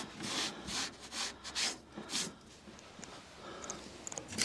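Hand brushing drilling dust across a wooden boat seat: a series of short rubbing strokes that fade out by the middle, followed by a few faint clicks near the end.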